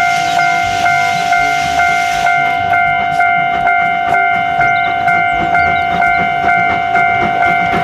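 Steam locomotive sounding a long, steady single-note whistle while it chuffs along, a little over two exhaust beats a second. For the first two seconds or so, steam hisses from around the wheels.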